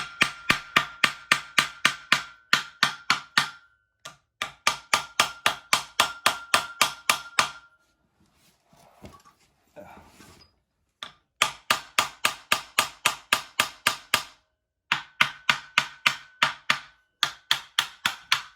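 Rapid hammer taps on a stuck water pump on a Dodge Neon 2.0 engine block, knocking it loose after its bolts are out: sharp metallic knocks about five a second with a ringing tone, in runs of three to four seconds with short pauses between.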